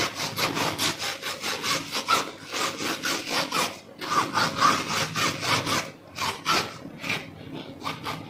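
Pastry brush scraping quickly back and forth over a plastic cutting board, spreading cooking oil across it in a fast run of repeated strokes, with brief pauses about four and six seconds in.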